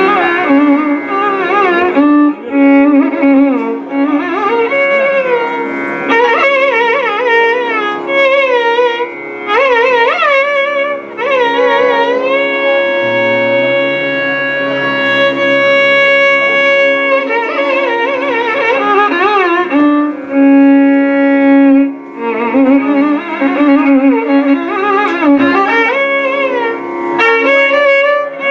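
Carnatic violin playing a melody in raga Poorvakalyani, full of sliding, oscillating ornaments, over a steady drone.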